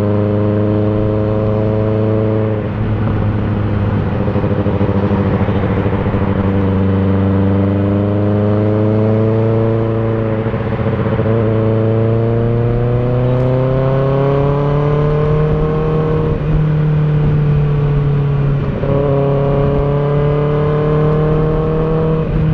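Kawasaki ZX-6R inline-four through an M4 GP19 exhaust with a dB-killer insert, running under way at around 3000 rpm with a loud, hollow, metallic drone over wind rush. The pitch climbs slowly and breaks off briefly a few times. The rider puts the hollow, metallic sound down to resonance in the pipe between about 2700 and 3700 rpm now that the stock resonator is gone.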